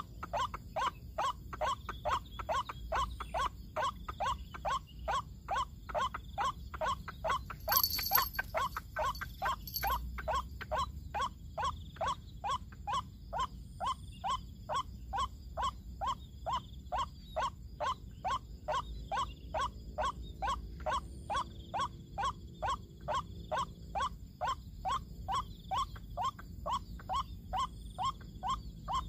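White-breasted waterhen (ruak-ruak) call: a steady, even run of short falling 'kruak' notes, about two to three a second, with a brief high hiss about eight seconds in.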